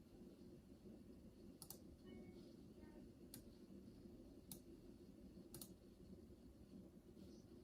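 Faint, steady electrical whine and hum from a Corsair RM750x power supply under light load: coil whine. Sharp clicks come about once a second and are the loudest sounds.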